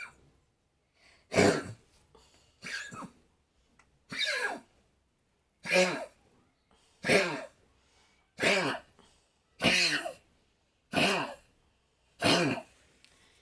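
Repeated coughing: about nine hoarse, hacking coughs in a steady series, roughly one every second and a half, each dropping in pitch.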